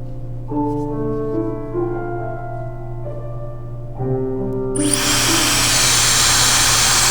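Background piano music, then nearly five seconds in a Dyson Supersonic hair dryer switches on and runs with a loud, steady rush of air and a thin high whine over the music.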